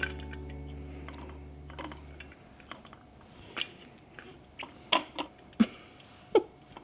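The last held guitar chord of the outro music rings on and cuts off about two seconds in. Then come a handful of small, scattered clicks and taps: handling noise as a desk globe and a glass-domed clock are held up and shifted in the hands.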